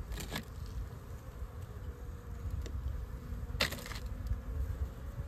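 Honeybees buzzing on an open hive, over a steady low rumble. Two brief rustling noises stand out, one just after the start and a louder one more than halfway through.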